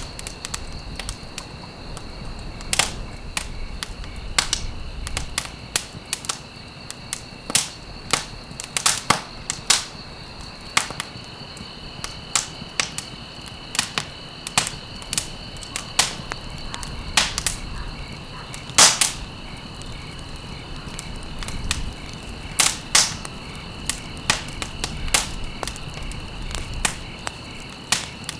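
Wood fire burning in a fireplace, crackling with irregular sharp pops, a few louder ones around the middle, over a steady hiss and a constant high-pitched tone.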